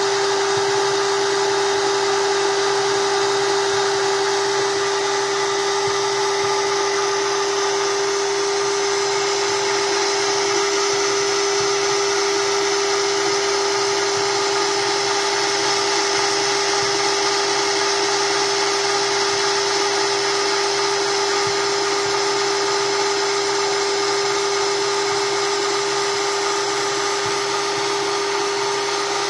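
Home-built PIC-controlled stepper-motor coil winder running at a steady speed, winding fine enamelled copper wire onto a bobbin. It makes a steady mechanical whine with one clear constant tone over an even hiss.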